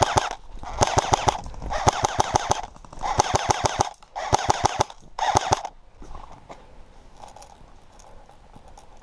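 Airsoft rifle firing on full auto: about six short bursts of rapid shots in quick succession, then it stops about six seconds in.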